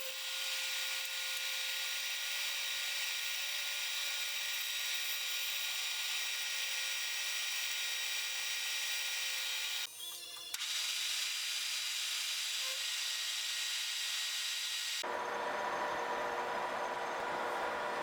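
Metal-cutting machine tool running steadily with a high whine and cutting hiss as it cuts steel, throwing long curled chips. The sound drops out briefly about ten seconds in and changes about fifteen seconds in.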